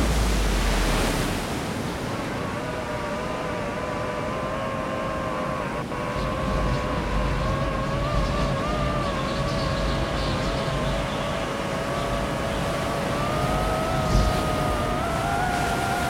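Multirotor drone propellers giving a steady, wavering whine that rises slowly in pitch over the last few seconds, over a steady rushing background.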